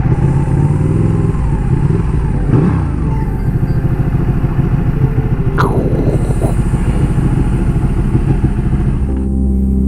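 Motorcycle engine idling steadily, with a couple of brief rises in pitch. Near the end the engine sound gives way to steady music.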